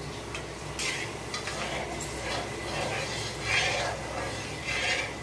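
Steel ladle stirring and scraping warm ghee in an aluminium kadhai, about four scrapes over a steady low hum.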